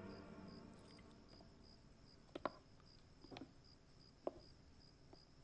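Faint night ambience of crickets chirping in an even pulse, about two or three chirps a second, as music fades out at the start. A few soft clicks come near the middle.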